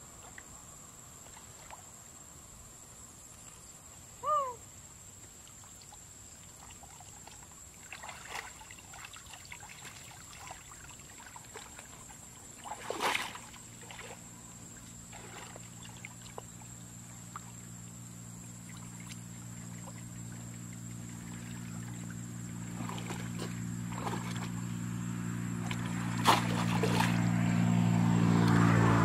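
Water splashing and trickling as woven bamboo fish-trap baskets are worked in a shallow muddy pond, with a few sharper splashes. A short pitched call sounds about four seconds in, and from about halfway a motor engine's hum comes in and grows steadily louder toward the end.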